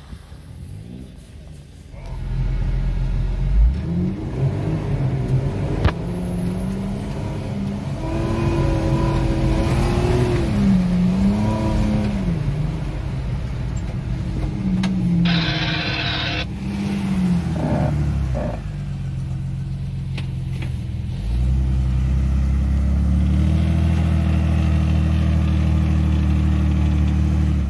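Off-road vehicle engines revving hard through mud, the pitch rising and falling again and again, with a brief rush of noise about fifteen seconds in. Over the last several seconds a Jeep Wrangler's 4.0-litre engine runs steadily.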